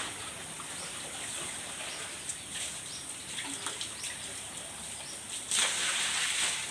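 Dairy cows feeding on fresh-cut grass at a trough: quiet crunching and rustling of the grass, with a louder, longer rustle about five and a half seconds in.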